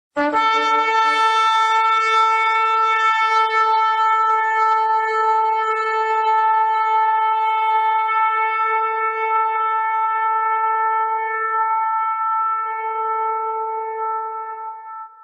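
Shofar sounding one long, steady blast of about fifteen seconds, starting abruptly and fading out near the end.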